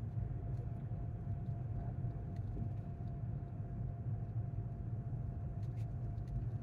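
Steady low road and engine rumble inside a moving vehicle's cabin, with a faint steady hum above it.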